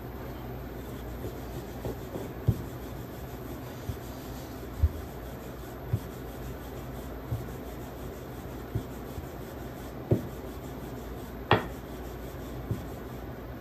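Wooden rolling pin rolling chapati dough out on a wooden board: a rubbing sound broken by light knocks about once a second, the loudest a little before the end. A steady low hum runs underneath.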